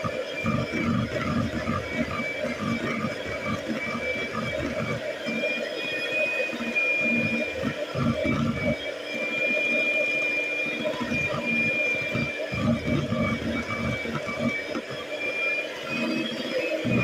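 Eggs and sugar being whisked in a bowl: an uneven run of low strokes, a few a second, with a steady high whine over them.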